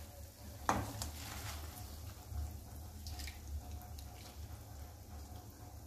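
Salted water boiling in a pan, with a soft splash about a second in as a bunch of spinach leaves is dropped in, then faint bubbling and small ticks over a low steady hum.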